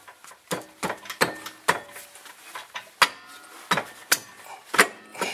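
New rear brake rotor of a 2003 Honda CR-V being worked onto its hub and wheel studs, a tight fit that doesn't want to go on: a string of irregular metallic knocks and clanks, several with a brief ring.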